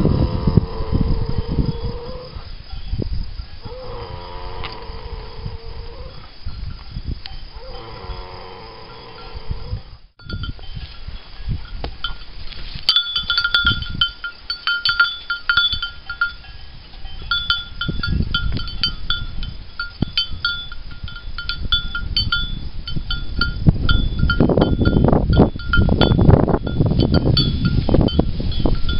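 A mare snoring: three long, drawn-out pitched snores about four seconds apart. After a short break, livestock bells clink and ring irregularly, with wind rumbling on the microphone near the end.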